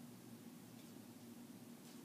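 Near silence: room tone with a faint steady hum and two faint light ticks, one near the middle and one near the end.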